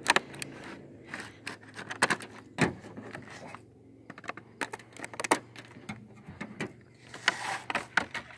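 Scissors snipping through stiff clear plastic clamshell packaging, with the plastic crackling as it is pulled open: an uneven run of sharp clicks and snaps, busiest near the end.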